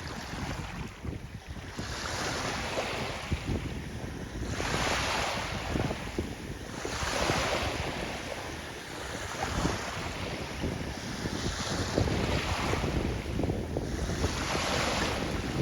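Wind buffeting the microphone over rushing, splashing sea water, the hiss swelling in surges every two to three seconds.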